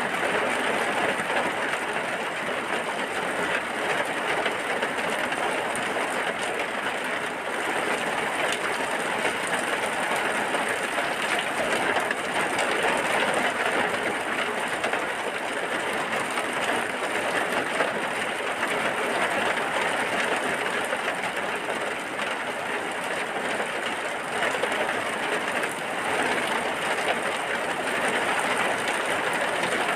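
Steady heavy rain with a dense, even patter.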